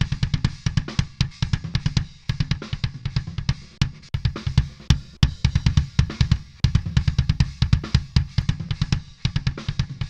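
Electronic drum track played back at 140 BPM, with a heavy kick whose low end is fattened by parallel bass bandpassing and saturation. The effect is switched in and out for an A/B comparison, and the low end shifts a few times as it does.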